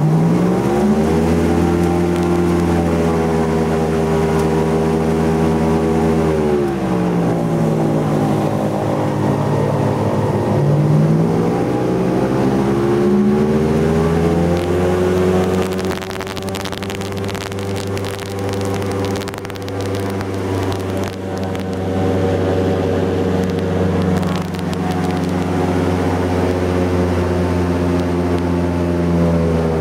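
Airboat engine and propeller revving up as the boat gets under way, then running at a steady pitch. About six seconds in it eases off, then climbs back up a few seconds later and holds steady.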